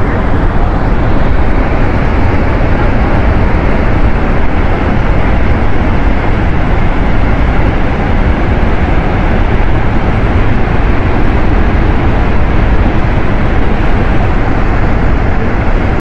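A large waterfall in heavy flood from monsoon rain, a loud, steady rushing noise with no let-up.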